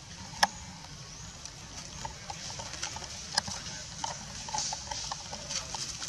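Outdoor ambience: a steady high-pitched hiss, with two sharp clicks about three seconds apart and scattered faint short chirps.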